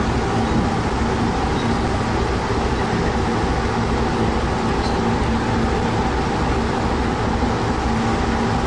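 Fishing trawler's engine and machinery running, a steady loud drone with a constant low hum.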